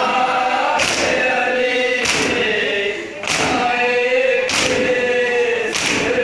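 Group of men chanting a Shia noha together, with a loud unison slap of hands on chests (matam) about every second and a quarter, five strikes in all.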